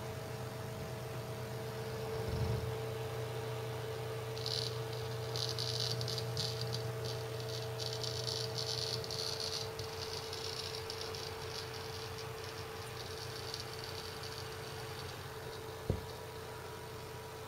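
Seagate ST6000DX000 7200 RPM hard drive running a random 4K read benchmark, with a steady spindle hum. From about four seconds in, a rapid clatter of seek clicks comes in for several seconds and then fades: the loud seek mode the drive goes into when its enclosure is tilted or moved while busy. A single knock near the end.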